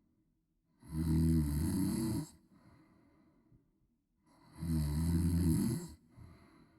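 A woman snoring loudly: two long, low snores about four seconds apart, each followed by a softer breath out.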